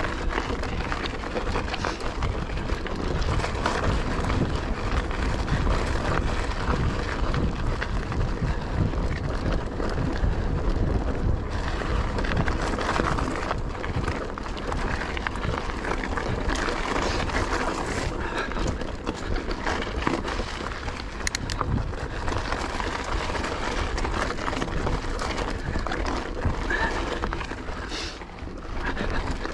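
Mountain bike ridden fast along a dirt trail: a steady rush of tyre noise with constant small knocks and rattles from the bike, and wind buffeting the camera microphone. It goes briefly quieter near the end.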